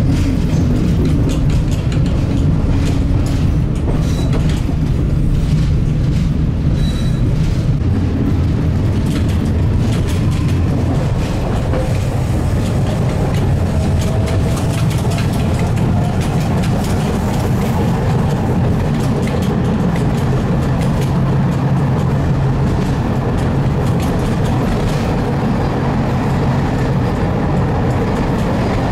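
Tram running along its track: a steady rumble of wheels on rails with frequent clicks, and a faint whining tone that comes and goes around the middle.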